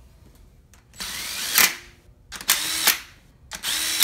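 Cordless drill spinning valve cover bolts down in three short bursts, the motor rising in pitch through each one. The bolts are run in snug only, to be finished by hand.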